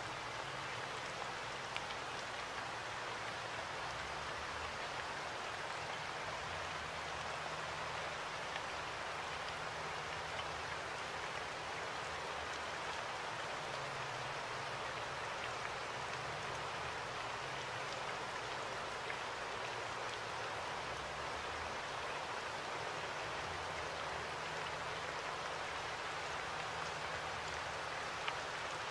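Steady, even hiss like rain or running water, with a faint low hum underneath and a few tiny clicks.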